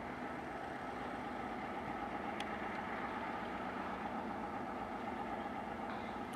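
2TE10M diesel locomotive's 10D100 two-stroke opposed-piston diesel engines running steadily under load as it sets off with a freight train.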